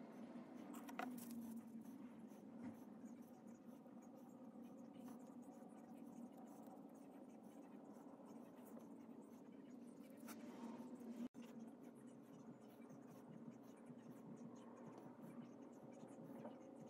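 Near silence: faint room tone with a low steady hum and a few soft scratchy handling noises. The sound drops out completely for an instant about eleven seconds in.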